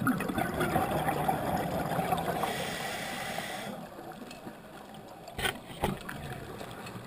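Scuba regulator exhaust bubbles gurgling underwater, a dense bubbling that drops away about four seconds in. Afterwards a quieter hiss remains, with two sharp clicks about half a second apart.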